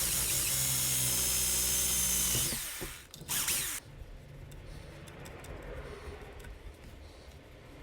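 Small electric power tool running at a steady speed for about two and a half seconds, slowing as it winds down, then given one short second burst.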